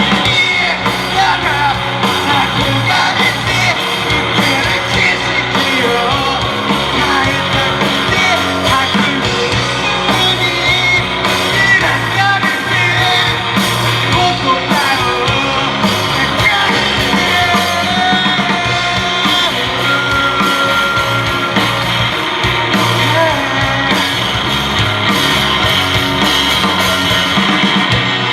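A rock band playing live at a steady, loud level: electric guitar over bass and drums, with some singing.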